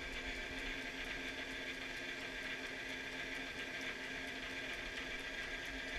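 South Bend 9-inch lathe running steadily under motor power with its back gear engaged, driven by a flat belt: a steady mechanical hum and gear whir with a faint, quick, regular ticking.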